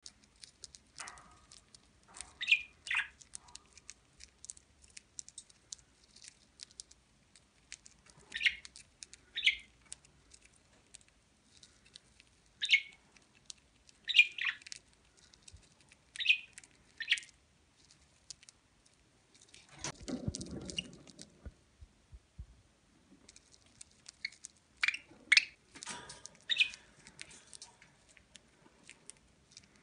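Budgerigar pecking seeds from a hand-held millet spray: a steady run of small, quick clicks, broken every few seconds by short, sharp chirps. About twenty seconds in there is a brief muffled rustle.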